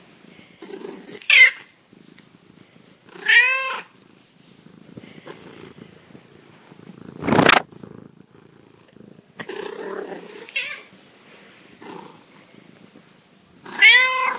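Black kitten meowing: two clear meows that rise and fall in pitch, about three seconds in and near the end, and a shorter, sharper cry about a second and a half in. A loud, brief noise comes about seven seconds in, over soft rustling.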